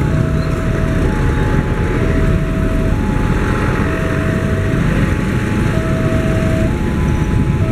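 Electronic warning alarm of a railway level crossing, alternating between a low and a high tone, each held just under a second, over a loud low rumble.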